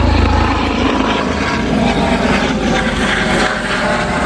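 Helicopter flying overhead, its low pulsing rotor beat loudest at first and easing about half a second in, over a steady rushing noise.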